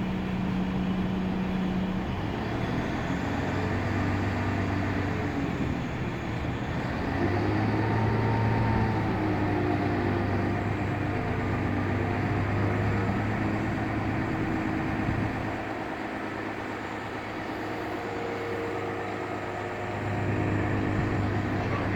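Heavy diesel engine of port machinery running with a steady low hum whose pitch shifts now and then. The hum eases off for a few seconds past the middle and comes back near the end.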